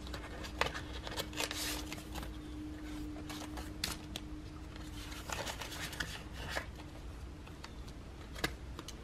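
Paper banknotes and clear plastic zippered binder envelopes being handled: soft rustling and crinkling with scattered small clicks as bills are slipped into a pocket and the envelopes are turned.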